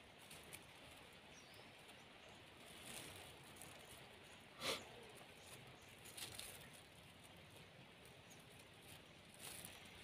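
Faint crinkling of a thin plastic bag being handled and knotted shut by hand, with one short, sharper rustle about halfway through.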